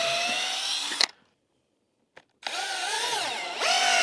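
Power drill driving screws into wooden boards, in two runs: the first ends about a second in, and the second starts about halfway through with a whine that dips and drops in pitch as the screw bites.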